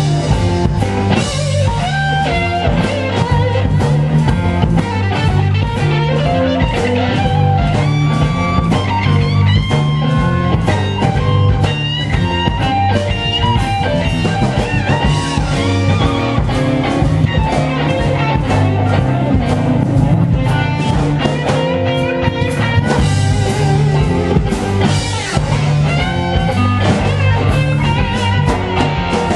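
Live blues-rock band playing loudly, with electric guitar lines out front over a steady beat.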